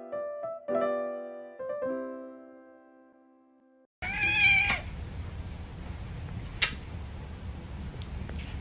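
Piano notes dying away, then a cat meowing once, briefly, over low room noise, with a couple of faint clicks afterwards.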